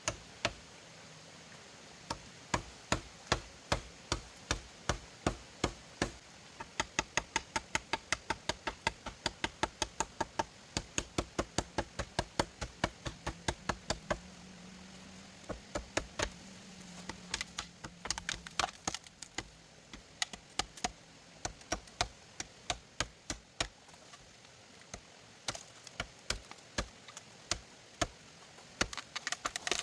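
Repeated hammer blows in steady runs of about three strikes a second, broken by short pauses. Some strikes carry a brief ring.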